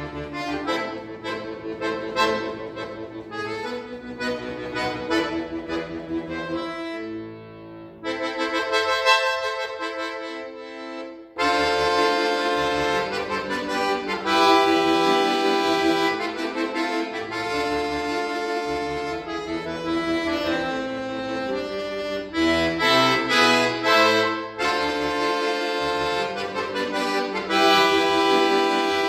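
Solo button accordion (bayan) playing: quick notes and chords, a quieter passage, then a sudden loud full chord about eleven seconds in, followed by sustained chords.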